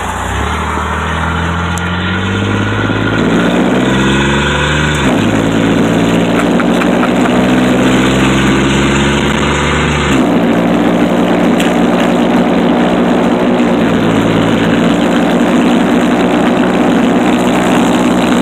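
Chevrolet Blazer engine with the muffler and back half of the exhaust cut off, heard from inside the cab as it pulls away from a stop. The exhaust drone rises in pitch and drops suddenly as it shifts up, about five and ten seconds in, then holds steady at a cruise of about 60 mph.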